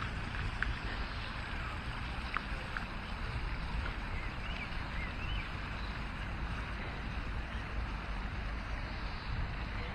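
Wind buffeting the microphone over the steady splashing of a park fountain, with a few faint chirps around the middle.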